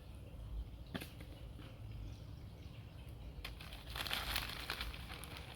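Crinkling, crackly rustle of potting soil being handled and added to a plant pot, loudest for about two seconds near the end, with a single sharp click about a second in.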